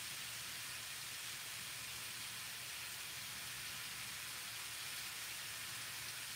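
Mushrooms frying in hot oil in a pan, a steady sizzling hiss.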